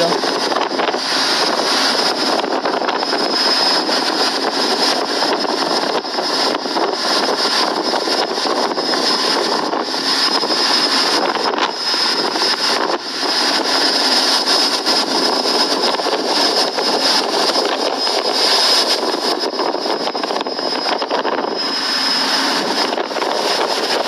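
Storm wind and rough, churning sea rushing past a ferry's side in a gale, a loud steady roar with a thin high whine over it.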